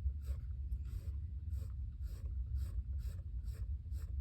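Quick, repeated drawing strokes scratching on sketchbook paper, about two to three a second, as in hatching, over a steady low hum.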